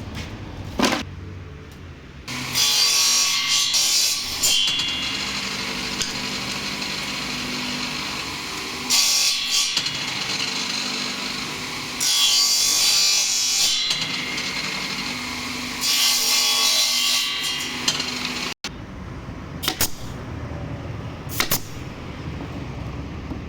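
A power tool running and working wood in four loud bursts of one to two seconds each. Near the end, after a sudden break, it is quieter, with a few short clicks.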